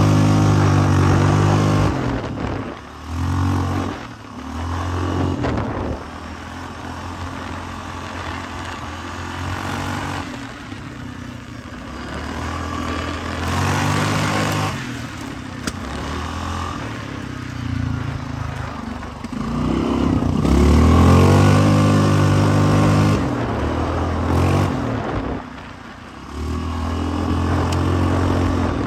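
Off-road vehicle engine under hard riding, revving up and easing off again and again, the pitch climbing with each pull.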